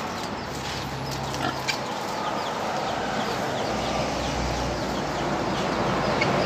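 A group of pigs grunting and calling together in a steady, overlapping chorus.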